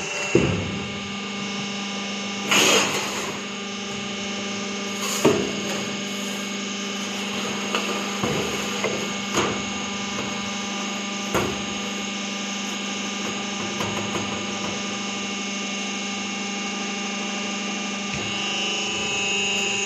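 Steady electric hum of a sheet-metal shear running, with a few short, sharp metallic knocks as a stainless steel sheet is moved under its row of hold-down clamps.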